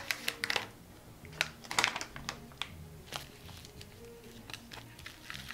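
Crinkling and crackling of a red plastic cable bag being handled as SATA cables are pulled out of it, in quick clusters of sharp crackles that thin out after about two seconds.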